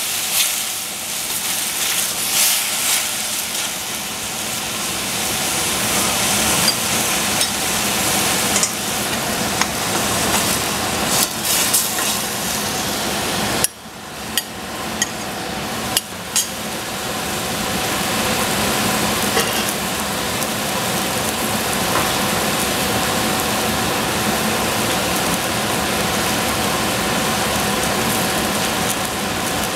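Food frying in hot oil in a pan, a steady sizzle, with a utensil stirring and clicking against the pan now and then. The sizzle dips briefly about halfway through.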